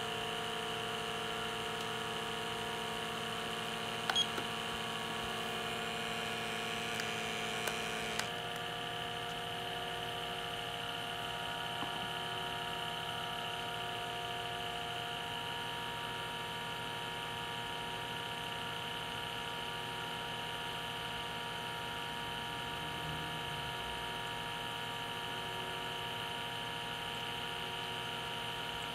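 Small electric vacuum pump sealed on a coffee dripper whirring steadily during a vacuum bloom, with a few clicks, then cutting off abruptly about eight seconds in. A steady electrical hum continues after it.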